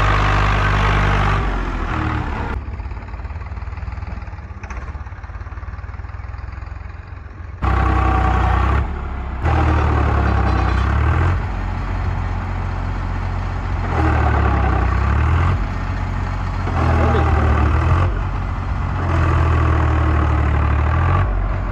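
Swaraj 735 FE tractor's diesel engine running hard, its pitch rising and falling, as the rear wheels spin in soft sand. It drops much quieter for a few seconds early on, then comes back loud about seven and a half seconds in.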